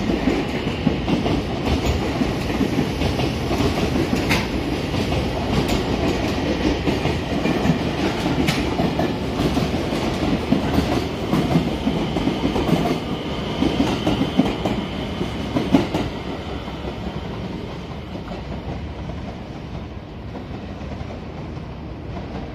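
Container flatcars of a passing freight train rolling through, a dense rumble with wheels clicking over rail joints. The sound drops and fades about 16 seconds in as the last wagons go by.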